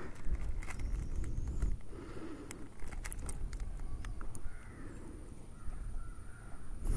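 Street dog eating biscuit off gravel: scattered small crunches and clicks, over a low rumble of wind on the microphone.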